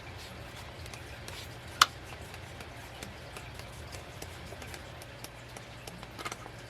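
Faint handling of an album photo book, its pages being turned, with scattered light ticks, one sharp click a little under two seconds in, and a few small clicks near the end, over a steady low hum.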